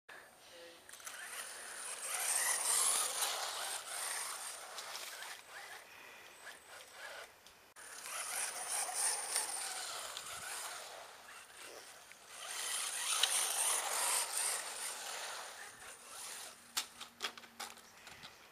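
RC buggy driving on paving stones, the sound of its motor and tyres rising and fading three times as it comes near and goes away. A few sharp clicks follow near the end.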